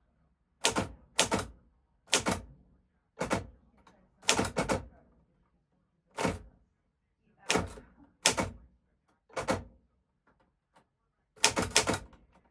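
1940s manual typewriter typed slowly: sharp, separate key strikes at an uneven pace, about one a second, with a quick run of three strikes near the end.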